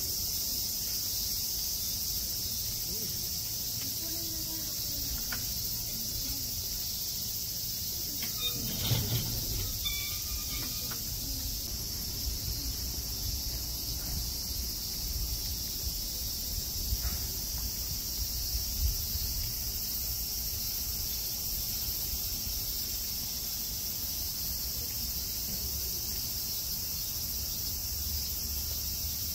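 Night insects, crickets, chirping in a steady high-pitched chorus. A brief faint sound about nine seconds in is the loudest moment.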